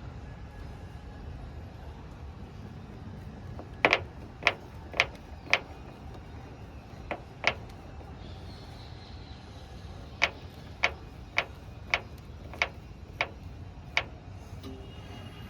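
IFB washing machine running in its spin cycle with a low steady hum, broken by sharp 'tuk tuk' knocks that come in runs of about two a second: the knocking fault that shows up at spin time.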